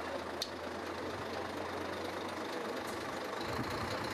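Truck engine running steadily as the truck drives past, a constant low hum under even road noise, with a single brief click about half a second in.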